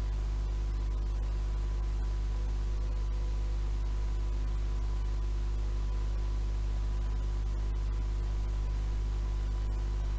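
Steady tape hiss with a low mains hum from playback of a 7-inch reel-to-reel tape, with no programme audible. A faint steady high tone runs through it.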